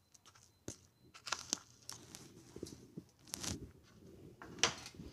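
A spoon adding ground spice to raw chicken pieces in a stainless steel bowl for a marinade: rustling and scraping with a few sharp clicks, loudest in two bursts in the second half.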